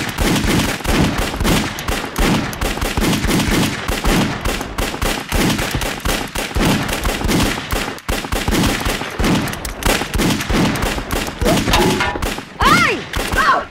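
A long, loud gunfight of revolver shots, many in quick succession, with no let-up until near the end.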